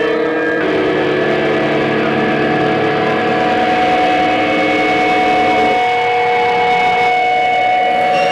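Harsh electronic noise music from a live synthesizer and electronics rig: dense, steady droning tones over a thick wash of noise. The held tones shift a little under a second in and again about six seconds in.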